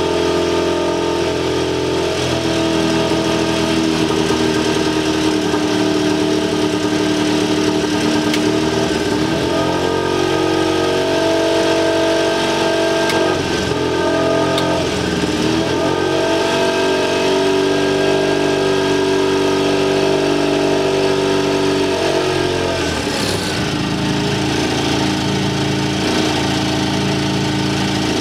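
HKS 700T fuel-injected turbocharged aircraft engine running at around 2,500–2,900 rpm during a magneto check. Its note dips briefly a few times, the rpm drop as one ignition circuit at a time is switched off and back on. About three-quarters of the way through it falls to a lower, steady speed as the throttle comes back.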